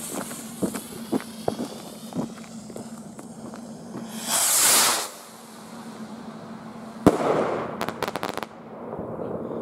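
Nico Metalhead SP-710 firework rocket climbing with a hiss and crackling sparks, and a louder rush of hiss about four seconds in. A little after seven seconds comes a sharp, echoing bang as it bursts into stars, followed by a quick run of cracks.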